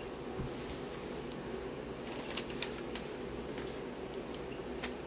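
Diamond painting canvas and its clear plastic film being handled on a table: light rustling with a few sharp crackles scattered through, over a steady low background hum.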